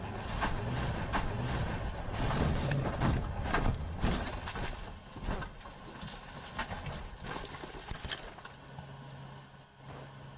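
Rally car off the road: a run of irregular knocks, thuds and scrapes, loudest about four seconds in, dying away after about eight seconds. A steady low engine hum follows near the end.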